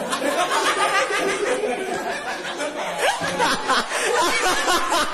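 A group of teenage boys laughing and chattering over one another.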